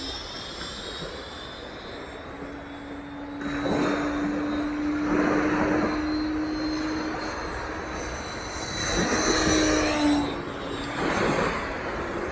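Electric ducted fan of a Dynam Meteor V3 RC jet (12-blade, 70 mm) whining steadily as the model flies overhead. Its loudness rises and falls in rushing swells as it passes. It is a sound the pilot calls not very pleasant to listen to.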